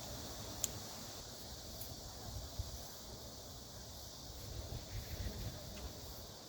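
Outdoor field ambience: a steady high chirring of insects, with an uneven low rumble underneath and one sharp click about two-thirds of a second in.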